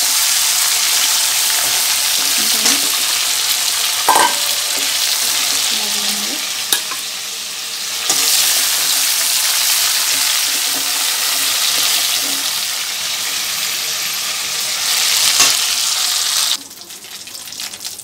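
Chicken pieces frying in hot oil in a metal kadai, a loud steady sizzle as they are stirred with a metal slotted spoon, with a few sharp knocks of the spoon on the pan. The sizzle cuts off abruptly near the end.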